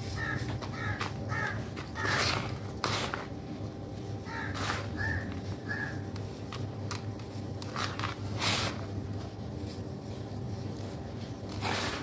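Red sand crumbling and sifting through gloved fingers into a basin: soft gritty rustles, with a few louder pours as handfuls are dropped. Short bird calls of a few notes each sound twice in the background, near the start and about a third of the way in.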